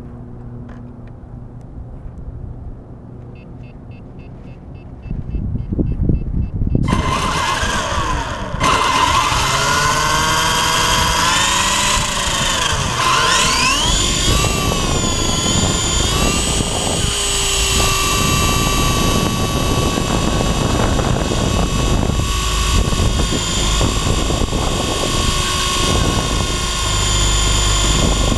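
WLtoys V913 RC helicopter's electric motor and rotor spinning up from rest. The whine starts about five seconds in and its pitch sweeps up and down for several seconds as the throttle is worked. It then settles into a steady high whine, with a deeper rotor-wash rumble near the end as the helicopter lifts off.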